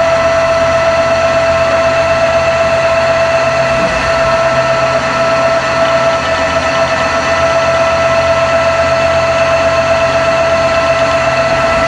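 Old CNC lathe running, its spindle spinning a chuck that holds square stock, with a steady high whine over a low hum.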